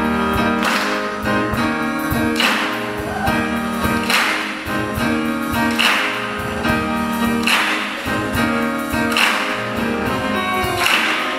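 Piano and string ensemble playing an instrumental passage of a swing-style spiritual, with held notes and a strong accent about every 1.7 seconds.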